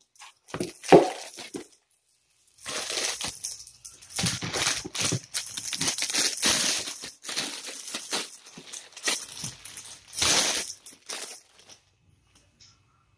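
Clear plastic bag crinkling and rustling in irregular bursts as it is pulled off a spinning reel, dying away about eleven and a half seconds in.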